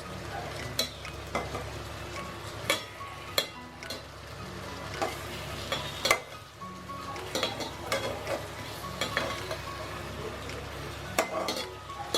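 Food frying in hot oil in a pan, with a steady sizzle. A metal spatula stirs it and knocks and scrapes against the pan in irregular clicks.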